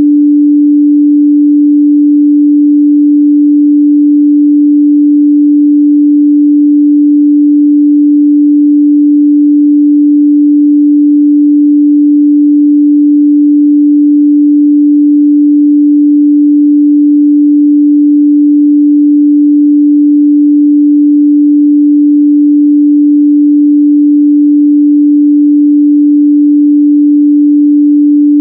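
Steady 293 Hz sine-wave test tone, a single pure pitch held without change.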